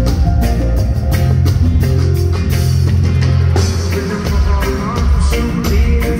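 Reggae band playing live: electric guitar over a drum kit and a deep bass line, with the bass pattern changing about four seconds in.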